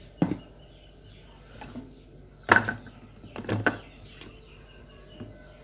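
A few sharp plastic knocks and clicks as a small blender cup is handled and its blade base fitted on. The loudest knock comes about two and a half seconds in, with two more about a second later.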